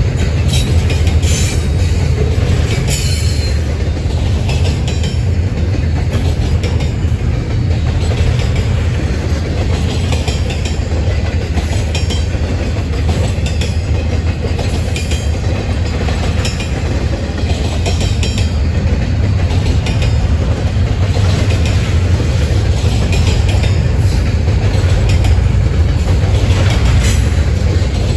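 Train cars rolling by: a steady low rumble of wheels on rail, with repeated clicks as the wheels cross rail joints.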